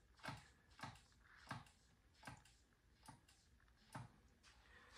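About six faint, unevenly spaced clicks from a Honda CB450T's front brake lever being pumped, using hydraulic pressure to push the seized, corroded pistons out of the front caliper.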